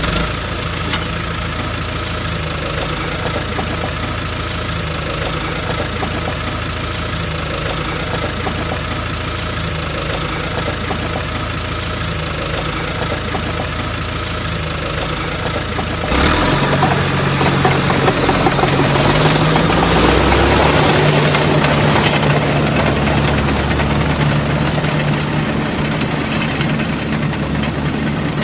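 A small engine running steadily. About halfway through it suddenly grows louder and rougher, and its pitch rises for a few seconds before settling.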